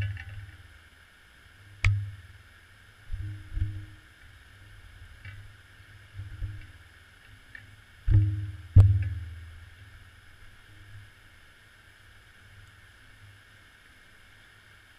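Muffled thumps and knocks on a GoPro's underwater housing, about six at uneven intervals, the two loudest close together a little past halfway, over a faint steady hiss.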